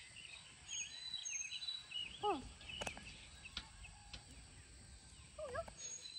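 Wild birds chirping and singing in the background. Two brief pitched calls, one about two seconds in and one about five and a half seconds in.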